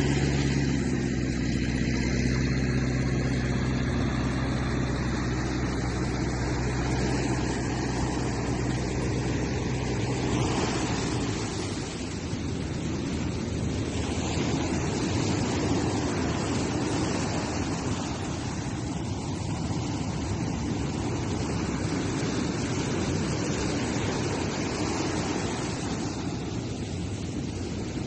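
An engine running steadily at a low, even pitch, fading out about ten seconds in, then wind noise on the microphone over rushing water.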